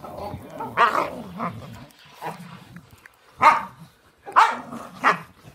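Dogs barking and growling in rough play. Short barks come throughout, with the three loudest about a second apart in the second half.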